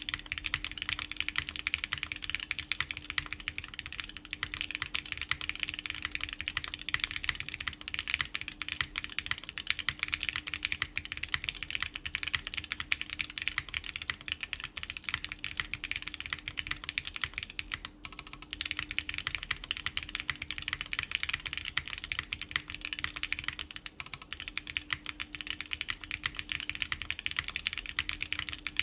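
Steady fast typing on a Plywrks Spyder TKL mechanical keyboard in its top-mount configuration, with factory-lubed Gateron Khonsu switches on a full polypropylene plate under GMK keycaps. It is a dense run of key clacks that stops briefly twice, about two-thirds and four-fifths of the way through.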